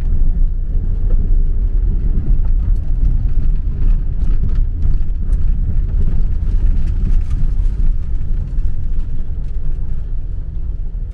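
Car cabin noise while driving slowly: a steady low rumble of engine and tyres with scattered faint ticks, easing slightly near the end as the car comes to a stop.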